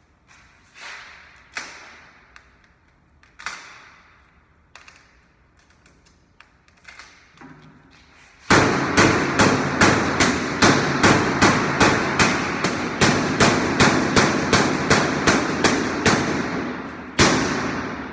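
Washing machine knocking: a few scattered knocks, then, about halfway through, a fast run of loud, even knocks, roughly three a second, ending in one last heavy knock that rings away.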